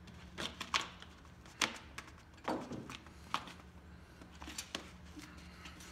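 Scattered light clicks and knocks, about seven, from the drum feed gearbox of an Ammco 4000-series brake lathe being turned and screwed back onto its feed screw by hand, over a steady low hum.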